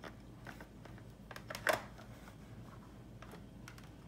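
Small plastic clicks and clacks as Shopkins toy figures are handled and set into a plastic display case, with the loudest clack a little before the middle.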